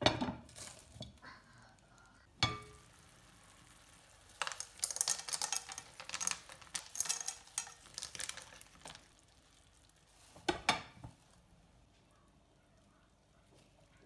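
Pan-cooking clatter: a glass pan lid clinks against a frying pan at the start, with another clink about two and a half seconds in. From about four and a half to nine seconds there is a busy run of light clatter and sizzling as handfuls of green beans drop into the pan of salmon steaks in sauce, followed by two short knocks near eleven seconds.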